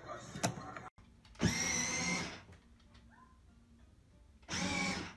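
Electric drive motors of a Kidzone 6V ride-on bumper car running in two short bursts of under a second each, a high whine that starts sharply.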